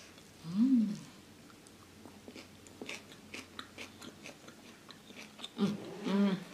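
A person chewing and crunching raw vegetables such as cucumber and lettuce close to the microphone, heard as a string of small crisp crunches. There is a short hummed vocal sound about half a second in, and another brief voiced sound near the end.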